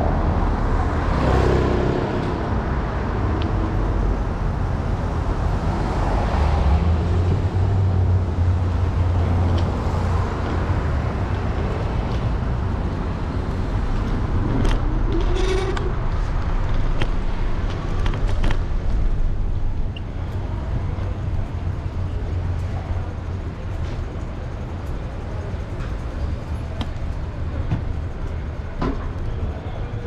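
City street traffic noise heard from a moving electric scooter, under a steady low rumble, with scattered short clicks and knocks. It turns a little quieter after about twenty seconds.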